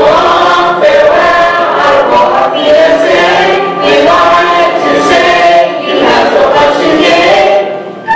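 A choir singing with musical accompaniment.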